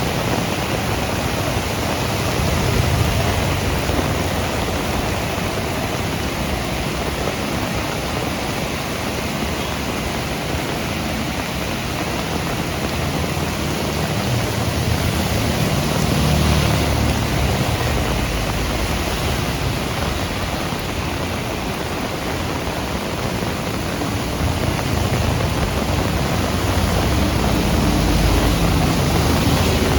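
Heavy rain pouring steadily, a dense even hiss, with a low rumble that swells now and then.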